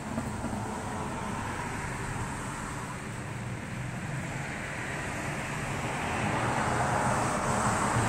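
Steady rushing hiss of rain falling outdoors, swelling louder about six seconds in.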